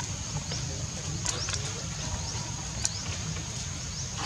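Outdoor background noise: a steady high-pitched whine, a low rumble, and a few faint clicks about a second and a half in and again near three seconds.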